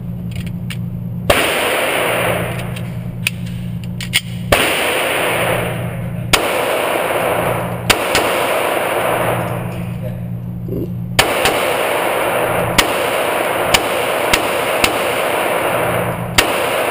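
Glock 26 subcompact 9mm pistol firing single shots, about ten in all at uneven spacing of one to three seconds, with a quick run of three or four near the end. A steady low hum runs underneath.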